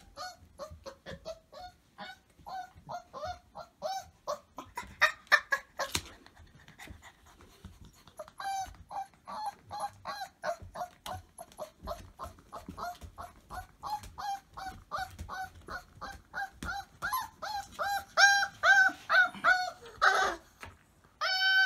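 Squeaky dog toy being chewed over and over, giving rapid runs of short, high squeaks, several a second, with a short lull before the squeaking picks up again. Near the end comes one longer, falling squeal.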